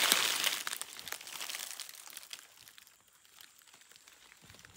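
Dry leaves and brush rustling and crackling as someone pushes through forest undergrowth, loudest in the first second or so and then fading to scattered faint crackles.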